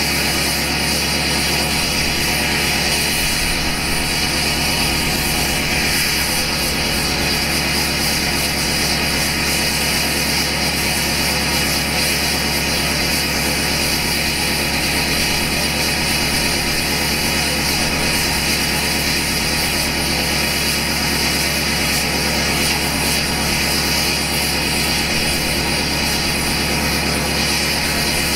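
2012 LML Duramax 6.6 L V8 turbodiesel idling steadily through a 5-inch straight pipe to an 8-inch axle-dump tip, a loud unmuffled diesel drone with no revving.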